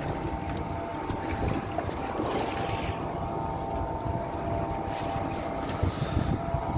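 Steady hum of a boat engine running, with wind buffeting the microphone.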